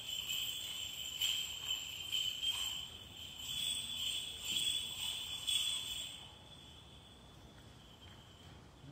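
Small bells on a swinging censer jingling in a repeated rhythm with each swing, stopping about six seconds in.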